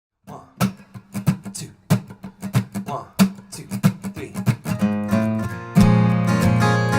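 Acoustic guitar intro: short, choppy muted strums for the first few seconds, then the chords ring out, with a louder full strum just before the end.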